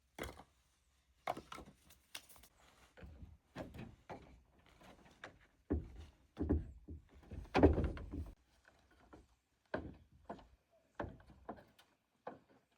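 Irregular knocks and thumps of things being handled and set down, a dozen or so spread unevenly, the heaviest one about seven and a half seconds in.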